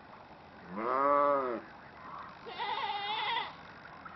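Two drawn-out animal calls, each about a second long: the first lower, rising and then falling in pitch, the second higher and wavering.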